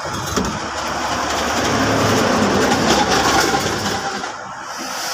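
A vehicle engine running, its sound swelling over the first few seconds and then dropping off about four seconds in.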